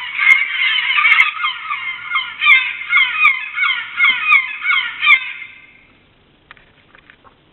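Recorded bird cries played through the small speaker of an RC fishing boat's sound-effects module: many rapid, overlapping calls, thin and tinny with no bass, fading out about two thirds of the way through.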